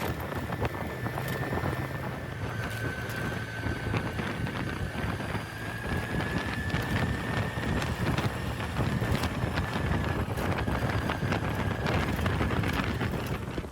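Vehicle travelling over a rough road, with wind buffeting the microphone and frequent knocks and rattles. A steady high whine wavers slightly in pitch throughout.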